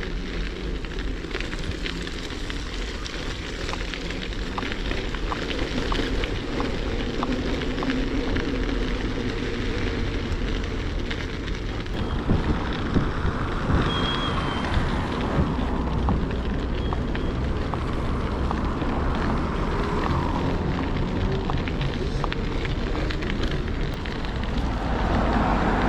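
Steady wind rumble on the microphone with dense crackling and clicking, typical of bicycle tyres rolling over crusty snow or gravel while riding.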